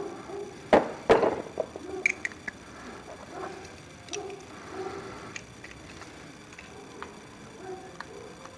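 Hand tools being handled and rummaged through: two sharp metal clanks about a second in, then lighter clicks and rattles.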